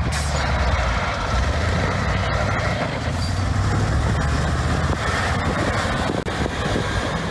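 Off-road vehicle's engine running steadily as it drives, with a noisy rush of tyre and wind sound over it and a brief dropout about six seconds in.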